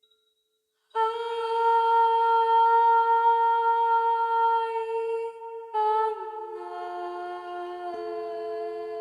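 A voice humming long held notes of a mantra, starting about a second in: one note held for several seconds, then a change to lower notes, with two pitches in harmony near the end.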